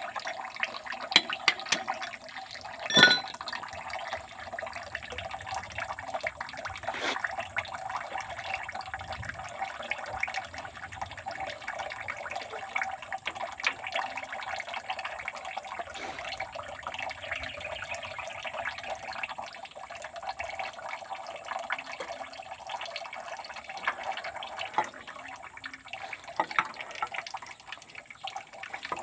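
Oil running steadily out of a John Deere 5715 tractor's opened hydraulic strainer housing into a bucket. A few sharp metal clicks of tools and parts come in the first seconds, the loudest a ringing clink about three seconds in.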